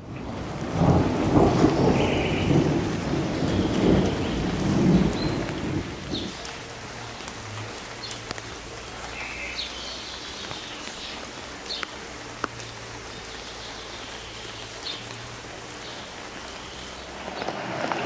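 Thunder rumbling over steady rain for about the first six seconds, then the thunder dies away and rain keeps falling.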